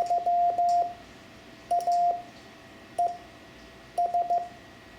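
Morse code sent as a beeping tone at one steady pitch: the letters Y, A, E and S of the word 'Yaesu', each a short group of dots and dashes with a pause between letters, the lone dot of E about three seconds in. A small click marks the start of each tone.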